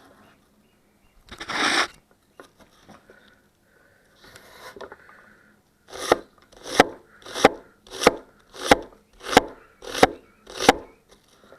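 Forged damascus gyuto chef knife chopping food on a board. A single longer slicing stroke comes early, then about eight even chops from about six seconds in, roughly one and a half a second.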